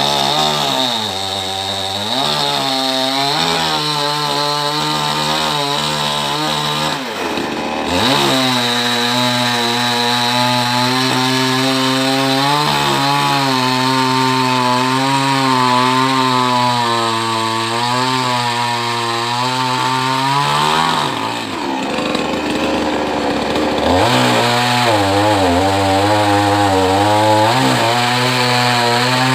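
Chainsaw running and cutting into a coconut palm trunk, the engine pitch rising and falling under load. The revs drop twice, once about a quarter of the way in and again for a few seconds past two-thirds of the way, before picking back up.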